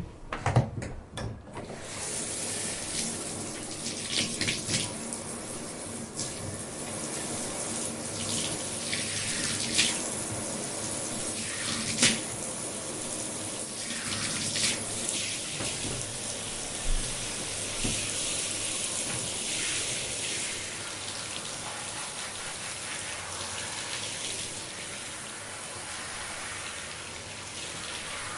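A few knocks, then shower water comes on about two seconds in and runs as a steady spray. Now and then sharper splashes break through as hair is washed under the stream.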